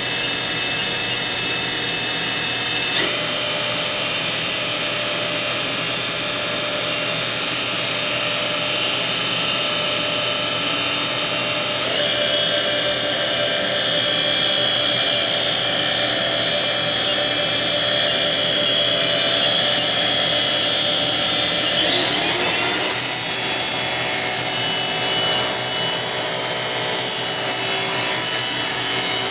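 Haas VF-1 CNC vertical machining center's spindle running with a steady high whine. The pitch steps up about 3 and 12 seconds in, then rises smoothly about 22 seconds in and holds at a higher tone as the spindle is brought up to speed.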